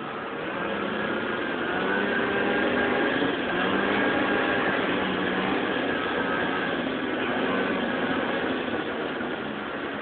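Lynx GLX snowmobile engine running under way, its note rising and getting louder over the first few seconds, then holding steady and easing off slightly near the end.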